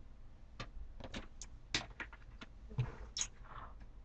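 Faint, scattered clicks and light taps over a steady low hum.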